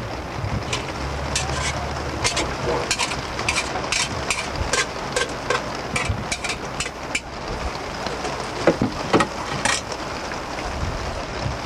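Raindrops ticking irregularly on a vehicle, over a steady rushing noise.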